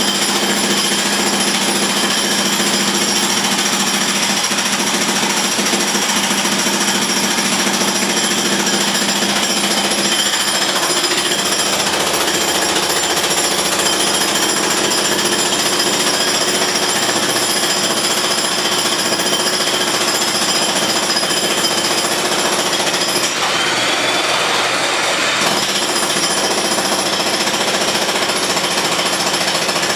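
Jackhammer hammering steadily, a loud continuous rattle that doesn't pause.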